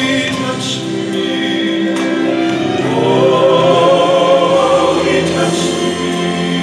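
Church music during Communion: a hymn sung with musical backing, in slow, held notes.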